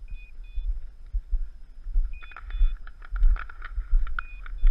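Wind buffeting an outdoor action-camera microphone as a low, uneven rumble, with short high beeps and light clicks scattered through it.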